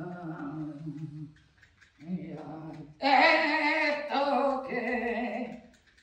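A woman singing long held notes in three phrases, the last one louder and higher, with a slight waver in the pitch.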